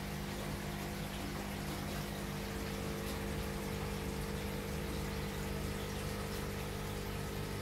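Water running steadily through a large aquarium's sump filtration system, with a steady low hum underneath.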